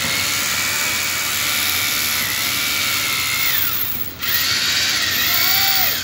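Power drill running near the microphone, a high whine that sags and falls in pitch as the trigger is eased, cuts out briefly about four seconds in, then spins up again.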